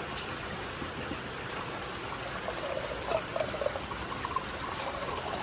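Water running steadily into a Holden VE Berlina's new windscreen washer bottle as it is filled to check the bottle and the homemade filler-neck elbow for leaks.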